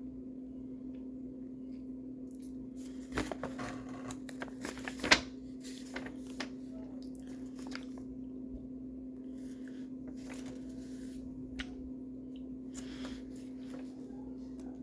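Intermittent crinkling and rustling of paper and packaging being handled, with one sharp click about five seconds in, over a steady low electrical hum.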